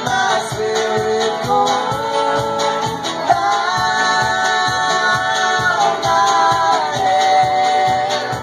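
Live folk band singing in harmony over banjo, acoustic guitar, fiddle and drums, with a steady driving beat and long held sung notes in the middle.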